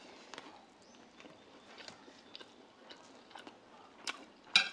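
A person chewing a mouthful of rice and grilled eel, faint and soft, with small clicks. Near the end come a couple of sharper clicks as chopsticks touch the plate.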